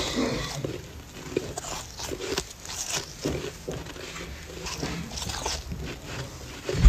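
Close-up chewing of a mouthful of snow: a steady stream of irregular crisp crunches. A loud low thump comes right at the very end.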